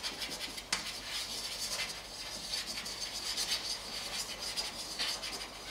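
Chalk writing on a blackboard: a run of short scratching strokes, with one sharper tap of the chalk under a second in.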